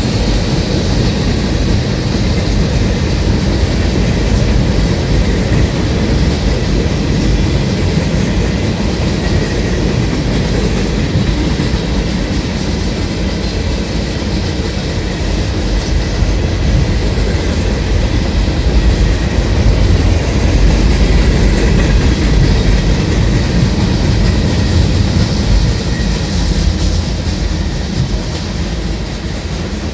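Freight train cars rolling past close by: a steady, loud rumble of steel wheels on the rails with a clickety-clack rattle.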